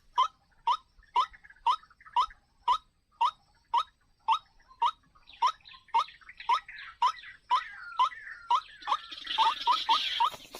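White-breasted waterhen calls: short, rising 'kwak' notes repeated evenly about twice a second. Near the end the notes come faster and a rougher, noisier sound joins them.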